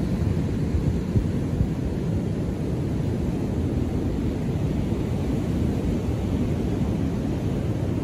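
Ocean surf breaking on a beach: a steady, low rumble of waves.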